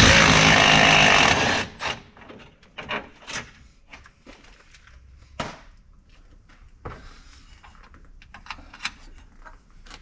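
Cordless impact driver running for about a second and a half with a rapid rattle, spinning a nut off the master cylinder at the brake booster. After it come a few light clicks and knocks of parts being handled.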